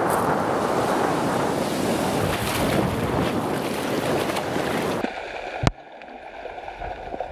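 Heavy surf breaking, with wind buffeting the microphone. About five seconds in, the sound drops abruptly to a much quieter, muffled one, with a single sharp knock just after.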